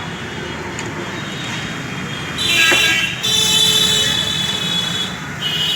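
Vehicle horns honking in street traffic: a short blast about two seconds in, a long one of nearly two seconds, and another short one near the end, over a steady traffic hum.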